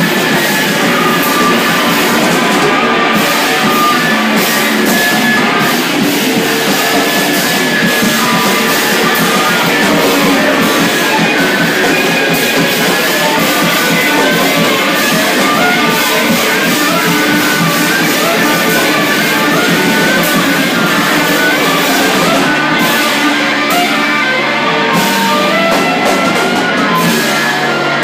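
Live noise-rock band playing loud and dense: a drum kit struck hard and continuously under electric guitars, one unbroken wall of sound.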